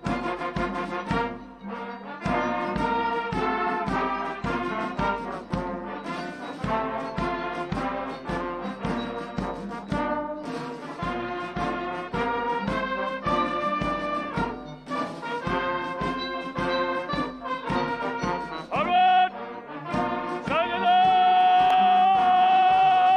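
Brass band music with a steady beat, closing on a loud chord held for a few seconds near the end.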